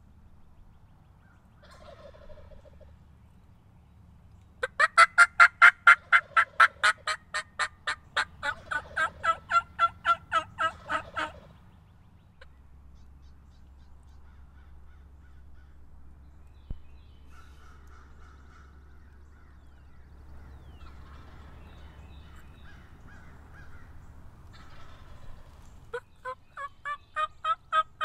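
A long, fast run of loud turkey yelps, about four or five evenly spaced notes a second, lasting some seconds and tapering a little toward its end; a fainter single call comes before it, and a second run of yelps starts near the end.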